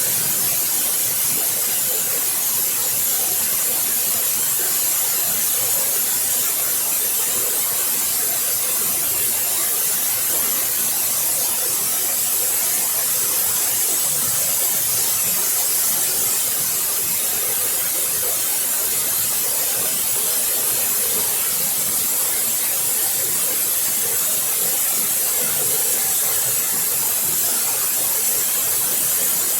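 Waterfall, water falling and splashing in a steady, unbroken rush with a strong high hiss.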